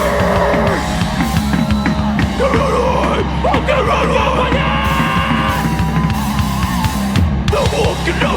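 Live hardcore punk band playing loud and steady, with yelled vocals.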